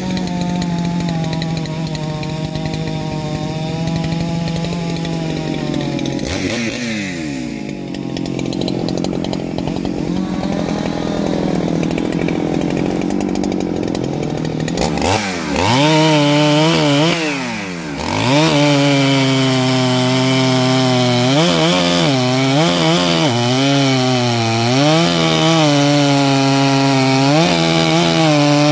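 Neo-Tec clone of a Husqvarna 395 two-stroke chainsaw running, its pitch wavering at lower revs at first. It revs up and down a few times, then from about two-thirds of the way in it is held at high revs cutting through a log, the pitch dipping now and then under load.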